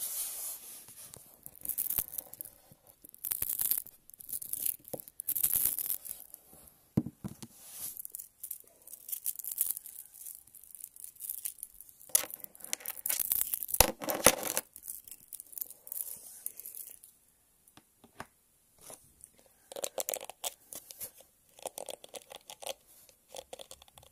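Small magnets handled close to the microphone for ASMR, clicking and scraping against each other in irregular crackly bursts.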